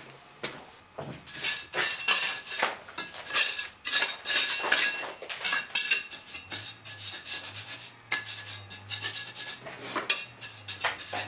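Stones being laid by hand into a wall opening: a run of gritty scrapes and knocks and clinks of stone on stone.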